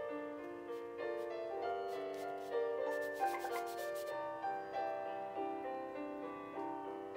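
Soft piano music with sustained notes, over which an ink brush rubs across paper in short scratchy strokes, most clearly about three seconds in.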